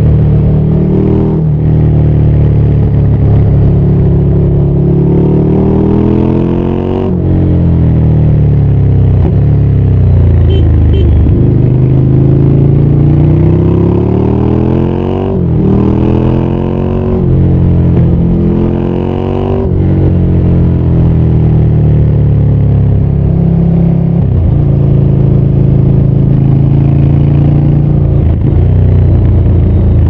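Ducati Scrambler 800's air-cooled L-twin engine under way, its pitch climbing as it accelerates and sinking as it eases off several times over, with abrupt breaks at gear changes. It runs steadier through the last third.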